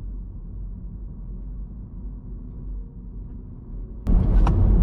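Car road noise heard from inside the cabin while driving: a steady low rumble. Near the end it suddenly turns much louder, with a few sharp clicks.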